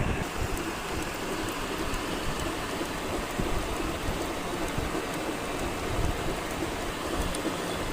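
Metalworking machine running while making a bolt: a steady, rain-like hiss with faint scattered ticks.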